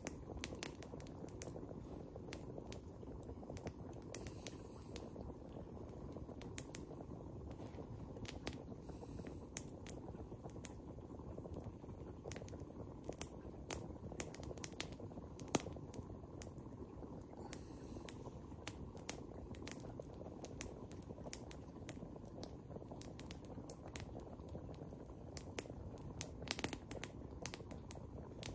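Wood campfire crackling: irregular sharp pops and snaps over a steady low rush.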